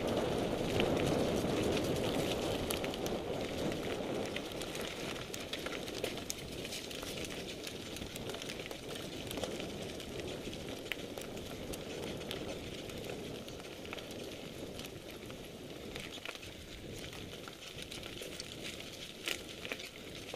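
Mountain bikes riding a dirt and rocky trail: tyres rolling over dirt and loose stones, with scattered clicks and rattles from the bikes. A steady rushing noise underneath is loudest in the first few seconds and slowly fades.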